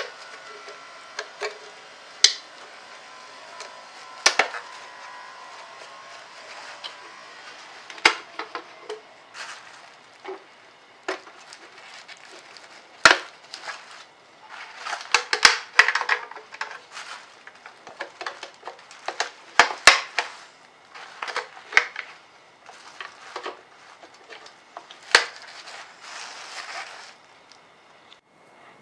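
Plastic clicks and snaps as bulb sockets are twisted out of one car tail light housing and into another. The clicks come irregularly and are busiest in the middle.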